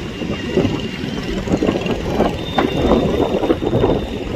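Distant jet airliner on its landing roll: an uneven engine rumble, with a thin high whine from about halfway through.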